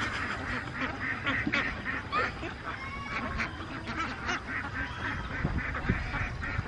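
Waterfowl calling: a steady run of many short, quick calls.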